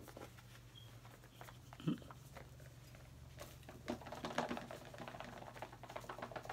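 Hands working at an AirPods box and its packaging: scattered light clicks and rustles, a single low thump about two seconds in, then a busier stretch of quick crackling rustle in the second half.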